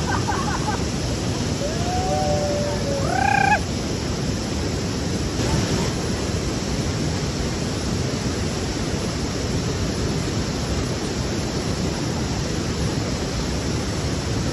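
Steady rushing of river water. A few short pitched calls, the last rising in pitch, come between two and three and a half seconds in.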